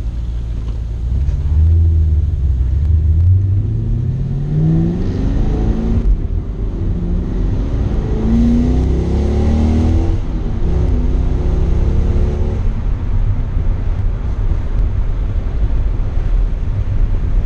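2004 Pontiac GTO's LS1 V8 through JBA shorty headers, H-pipe and cat-back exhaust, heard from inside the cabin. It accelerates with the engine pitch climbing, breaks off about six seconds in, and climbs again. Around ten to twelve seconds in it eases off to a steady low drone.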